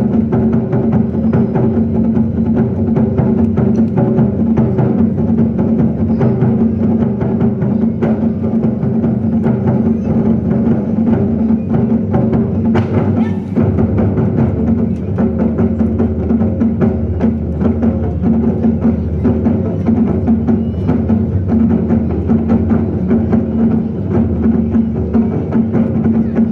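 Ensemble of large drums in a Zen drumming performance, struck in a dense, continuous roll and loud throughout, with a steady low tone held underneath.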